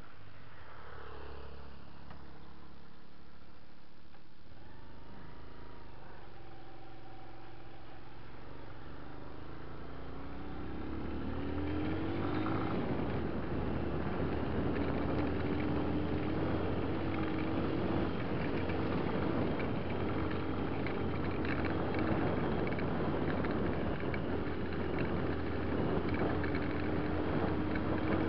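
Enduro dirt bike engine running quietly at first, then pulling away about ten seconds in, its note climbing and settling into a steady ride. The rumble of tyres on a rough gravel track and wind run under it.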